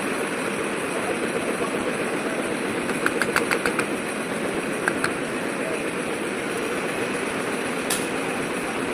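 Iron wire bending machine running steadily, with a quick run of sharp clicks about three seconds in, a couple more around five seconds, and one near the end.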